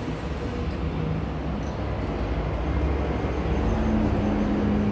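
Steady low rumble of road traffic that grows a little louder toward the end, with a couple of faint light clicks about a second in.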